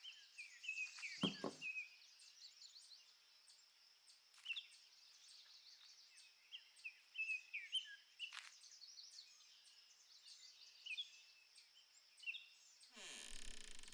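Faint outdoor ambience of many small birds chirping in short rising and falling calls over a steady high insect-like hum. A brief deeper sound comes about a second in, and a short noisy rush comes near the end.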